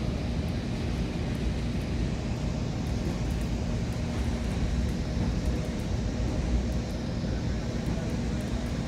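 Steady low rumble with a constant hum inside a Metra Nippon Sharyo bi-level passenger coach.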